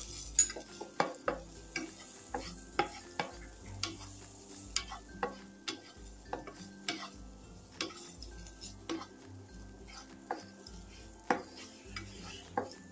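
A utensil stirring raisins roasting in ghee in a pan over a low flame, knocking and scraping against the pan irregularly, about once or twice a second, over a faint sizzle.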